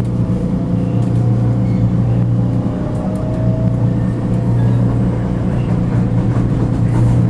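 Vienna U-Bahn metro train running, heard from inside the car: a steady low rumble and hum of wheels and motors, with a faint whine rising in pitch over the first few seconds.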